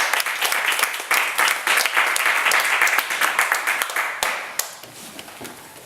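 Audience applauding after a speech, a dense patter of hand claps that thins out about four seconds in, leaving a few scattered claps.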